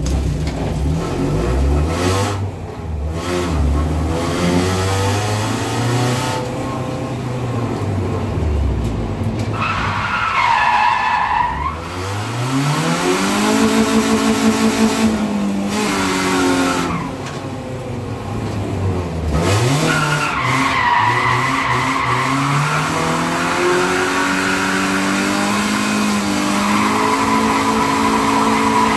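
BMW E36 drift car's engine revving up and falling back again and again as it slides, with its winter tyres squealing, heard from inside the stripped cabin. The engine climbs and holds high for a few seconds around the middle; the tyre squeal comes a little before that, again past the middle, and in the last few seconds.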